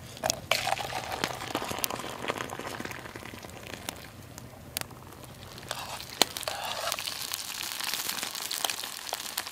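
Rustling and crinkling of gear being handled, with scattered sharp clicks; the loudest click comes about six seconds in.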